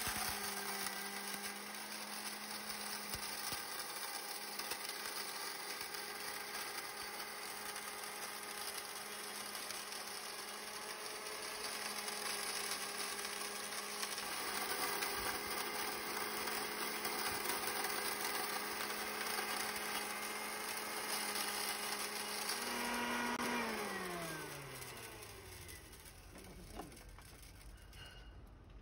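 Kadmec Euromill-25 electric grain mill running with a steady hum while grinding corn kernels. About 23 seconds in it is switched off, and the motor winds down with a falling whine.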